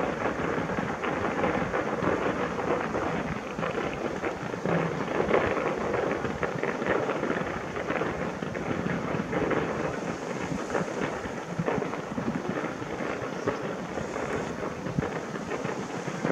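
Fireworks crackling: a dense, continuous stream of small pops and crackles, with no single large boom.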